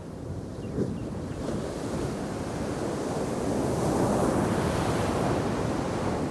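Ocean waves breaking in a heavy shore break on a sand beach. The surge builds to its loudest about four seconds in and eases off near the end.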